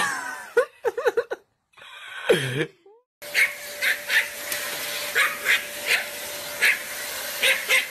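A long-haired brown dog whining in wavering calls that rise and fall, ending in a long falling groan. After about three seconds this gives way to a steady hiss with short, high sounds about twice a second.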